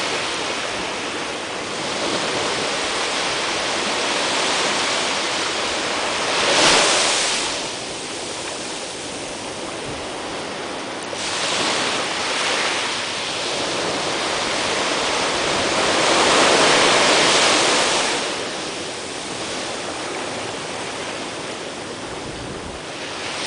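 Small waves breaking and washing up on a sandy shore, the wash swelling and fading every few seconds. It peaks sharply about a third of the way in, with a longer swell about two-thirds through.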